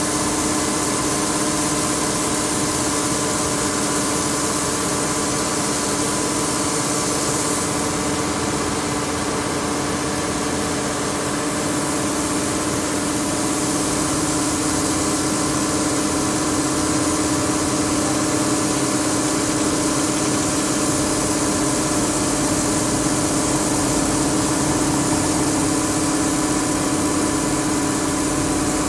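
Barge-loading machinery running steadily: a constant mechanical hum with an even hiss over it, as loose aggregate streams off the conveyor chute into the barge's hold.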